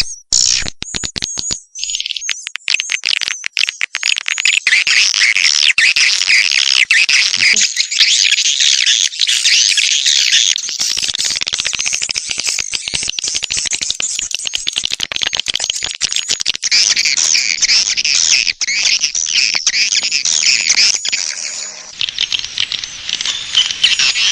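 Swiftlets twittering and chirping in a dense, continuous chorus of high, fast calls, a swiftlet call sound played to lure wild swiftlets into a swiftlet house. For the first couple of seconds the sound is choppy, broken by quick gaps.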